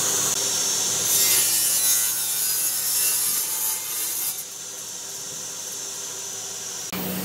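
A tool cutting or abrading doussie hardwood: a dense rasping, rubbing noise, louder for the first four seconds or so and quieter after. An electric tool's hum starts up again near the end.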